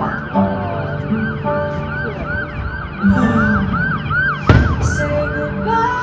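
A fireworks show soundtrack plays through speakers: held music notes under a rapid string of rising-and-falling whistling glides. A single firework shell bursts with a boom about four and a half seconds in.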